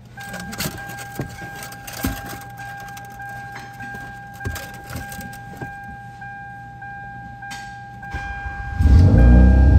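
Keys clicking and jingling in the ignition of a 2013 Hyundai Veloster while a steady electronic warning tone sounds from the dash. About nine seconds in, the 1.6-litre engine starts and runs up loudly.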